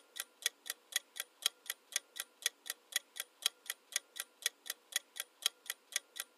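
Clock-ticking sound effect of a quiz countdown timer, sharp even ticks about four a second, marking the seconds left to guess.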